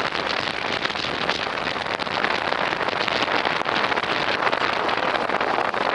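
Steady rush of wind buffeting the microphone at the open window of a moving train carriage, mixed with the train's running noise.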